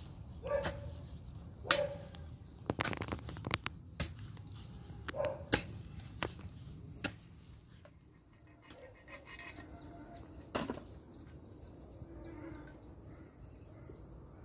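A hand hoe chopping into loose soil in irregular strikes, a few with a brief ringing note; the strikes grow fewer and fainter after about eight seconds.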